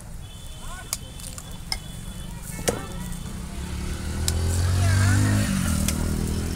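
Eggs knocked open with three sharp knocks about a second apart and dropped onto a paratha on a hot iron tawa, with a faint sizzle. In the second half a passing motor vehicle's engine rises to be the loudest sound and drops in pitch as it goes by.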